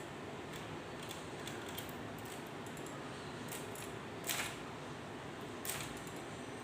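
Light metallic clicks and taps from the mechanism of a K Clover 815 manual typewriter being handled during cleaning. Two short, louder rustles come about four and five and a half seconds in, over a steady hiss.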